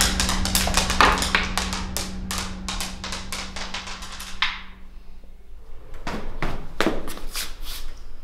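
A quick, irregular run of sharp wooden taps that thins out over the first five seconds, over a low steady hum that fades about five seconds in. A second short cluster of taps follows near the end.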